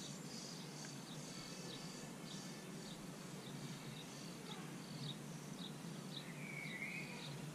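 Faint bird calls: a short, high chirp repeated about twice a second, with a longer, lower call near the end, over a steady background hiss.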